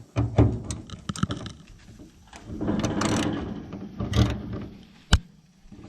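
Socket wrench clicking and metal tool knocks while working at a rusted cowl bolt, with a run of quick clicks early on and one sharp knock about five seconds in.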